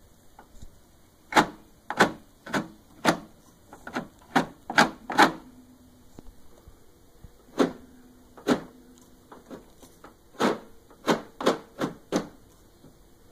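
Snow blower parts and their bubble-wrap packing being handled: about fifteen short, sharp knocks and crinkles in irregular bursts, with a quick run of them in the first half and another near the end.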